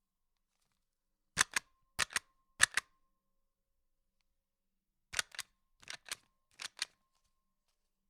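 Self-inking rubber stamp pressed onto paper six times, each press a quick double click. The first three presses come in a fast series about a second and a half in, and three lighter ones follow about five seconds in.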